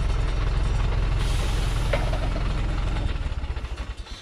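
Thaco Forland truck's diesel engine idling close by with a steady, even low chugging, fading away near the end.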